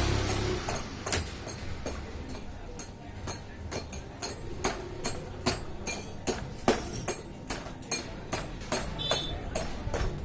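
A run of sharp, irregular knocks and clinks of hard objects, about two to four a second, over a low rumble.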